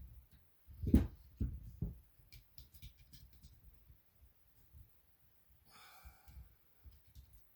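Handling noise from taking apart a paintball marker's regulator: a low thump about a second in, two smaller thumps after it, and scattered light clicks of small metal parts. A short breathy noise comes about six seconds in.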